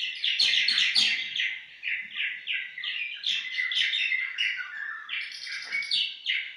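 Swallow song: a fast, unbroken twittering of short chirps.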